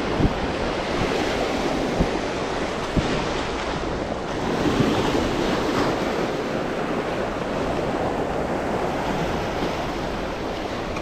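Sea surf breaking and washing over reef rocks, a steady rushing that swells as a wave breaks about four to five seconds in. Wind gusts briefly bump the microphone.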